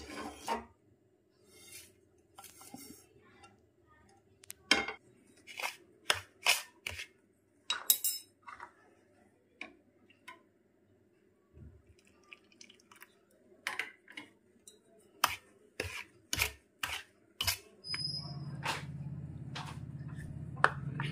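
Metal spoon clinking and knocking against a stainless-steel plate in a string of sharp, separate clinks as rice flour is stirred and worked into dough. A steady low hum comes in near the end.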